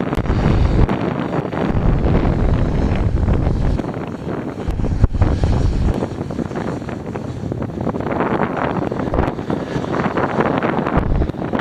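Wind buffeting the microphone in uneven gusts over the steady noise of a Cessna 402C's twin piston engines at takeoff power.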